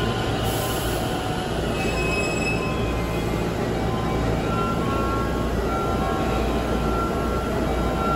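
Ten-car electric commuter train rolling slowly into the platform and braking to a stop: a steady low rumble, with thin high squealing tones in the second half.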